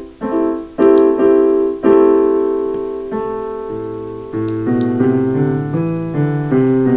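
Piano music: struck chords that ring and fade, with a low bass line entering about halfway through.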